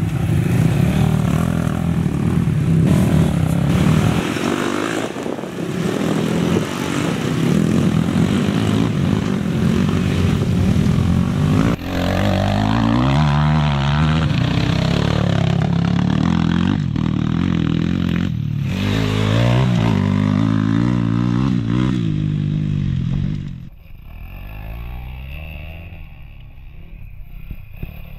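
Dirt bike engines revving and accelerating along a loose dirt track, the pitch rising and falling with the throttle. The engine sound drops to a quieter level near the end.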